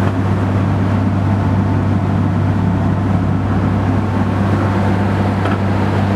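A motor boat's engine running steadily under way: a constant deep hum, with wind and water hiss over it.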